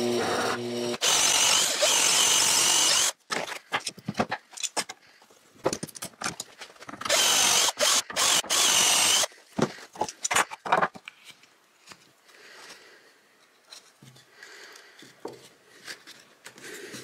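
A cordless drill bores into a pine board through a steel 3/8-inch dowel-drilling jig, in two bursts of about two seconds each: one about a second in and one about seven seconds in. Scattered clicks and knocks of handling fall between and after the bursts. A brief machine hum comes before the first burst.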